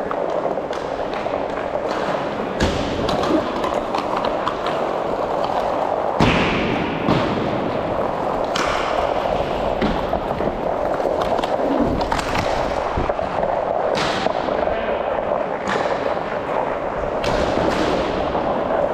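Hockey skates running steadily over a plastic tile rink floor, with sharp knocks of sticks and puck striking every second or two; the loudest come a little after six seconds and at fourteen seconds.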